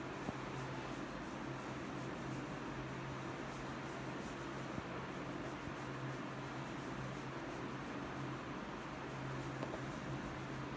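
Faint rubbing and scratching of fingertips working through oiled hair and over the scalp, over a steady low hum.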